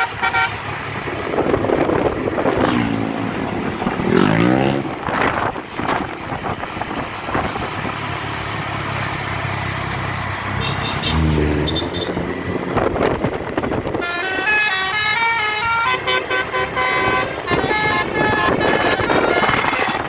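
Road and engine noise with sweeping pitch changes from passing vehicles. About fourteen seconds in, a bus's basuri telolet air horn starts playing a fast tune of stepped notes.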